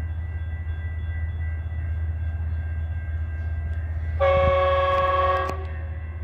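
Metrolink commuter train's locomotive air horn, one blast of a few notes sounded together, lasting about a second and a half, about four seconds in, over a steady low rumble.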